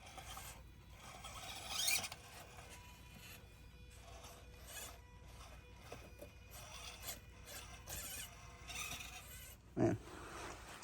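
Micro-scale RC rock crawler scraping and grinding over rough ground in short irregular bursts as it climbs, the loudest about two seconds in.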